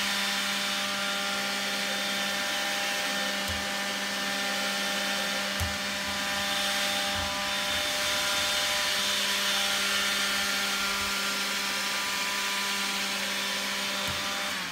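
Makita stick vacuum cleaner running steadily, a constant motor whine over the rush of air at the nozzle, with a few soft low knocks now and then.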